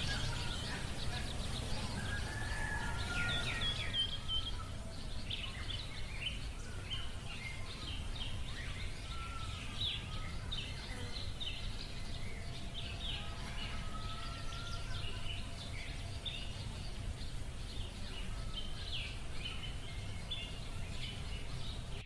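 Small birds chirping, many short quick calls with a few short whistled notes, over a steady low background rumble.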